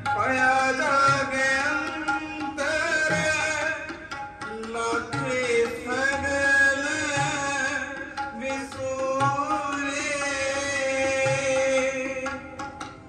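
Sikh devotional music (kirtan): a long-held sung melody over tabla strokes.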